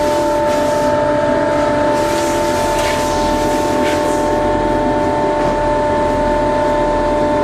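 Steady machinery running on a fishing boat, a constant drone with an unchanging high whine over a low rumble. A few light knocks come in the first half.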